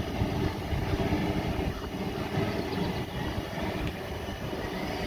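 Steady low rumbling noise from a large aluminium stockpot of meat at a hard boil, with the burner under it running.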